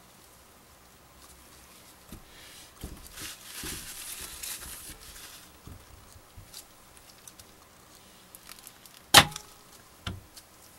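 A soap loaf being handled and slid along a wooden wire soap cutter. There are a couple of seconds of light rustling about three seconds in, then one sharp knock near the end and a lighter one about a second later.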